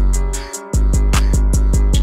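Background music with a beat: deep bass hits that slide down in pitch, with a quick run of them about halfway through, under high ticking hi-hats and held notes.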